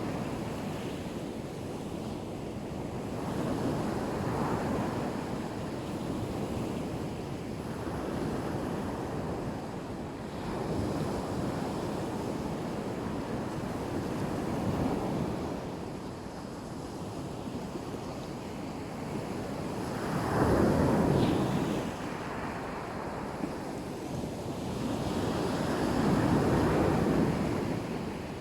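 Black Sea surf breaking on the shore, a steady wash that swells and falls back every few seconds. The loudest waves come about two-thirds of the way in and again near the end.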